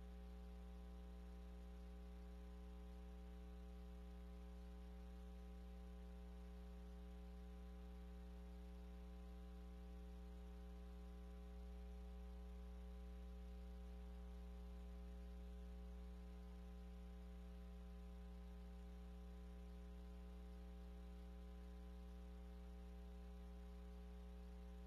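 Near silence: a steady electrical mains hum with a faint hiss, with no race sound.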